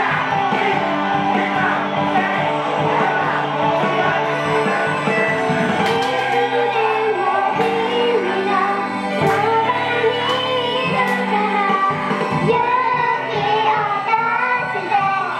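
Pop song: instrumental music with a group of young girls singing into handheld microphones.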